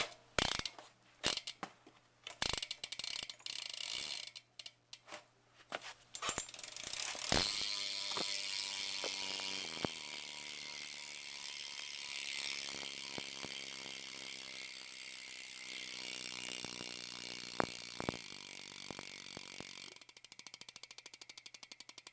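Loud ratcheting click of a BMX bike's Shadow Raptor cassette rear hub as the back wheel freewheels. Scattered bursts of clicks at first, then from about seven seconds in a fast continuous buzz of clicks as the spun wheel coasts and gradually slows. Near the end it breaks into separate rapid ticks.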